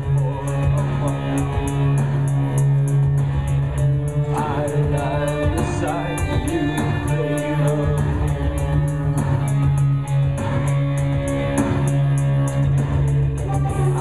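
Live industrial electronica: a held synthesizer bass line and electric guitar over a steady, fast beat, with a voice singing in places.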